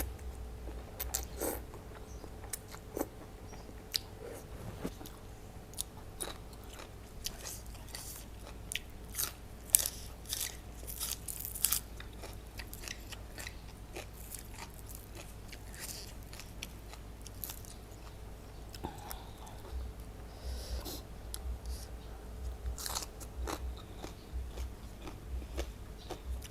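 Close-up eating sounds: biting and chewing with many short, crisp crunches, densest about a third of the way in, from a person eating papaya salad with raw vegetables.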